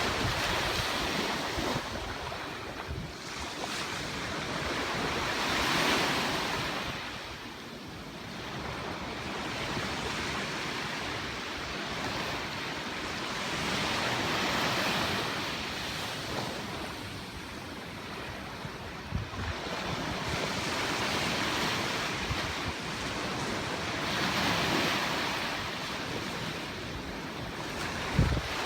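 Ocean surf breaking on a beach, the wash swelling and fading every four or five seconds, with wind buffeting the microphone.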